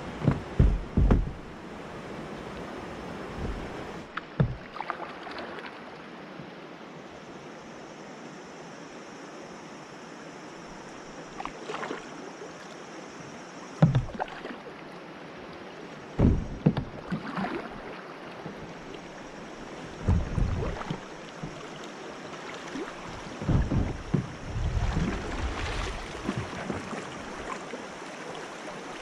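Swift river current rushing steadily past a kayak, with occasional short low thumps and knocks, several in a cluster right at the start.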